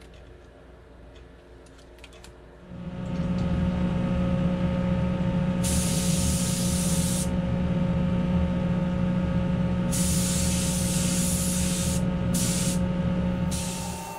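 Gravity-feed paint spray gun spraying primer in four hissing bursts, the first two a second or two long and the last two short, over a steady machine hum in the spray booth that comes in about three seconds in. Before the hum, a few faint clicks as the gun is handled.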